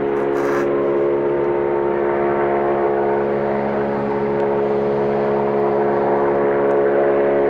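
Helicopter in flight, a steady hum of layered rotor and turbine tones that grows slightly louder near the end.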